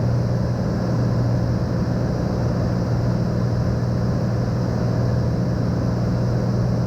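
Cessna 182M's piston engine and propeller giving a steady, even drone, heard from inside the cabin in a cruise climb.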